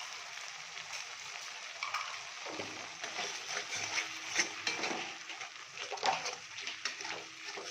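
Mustard paste and spices sizzling in hot oil in a kadai. From about two and a half seconds in, a utensil scrapes and clicks against the pan as the mixture is stirred.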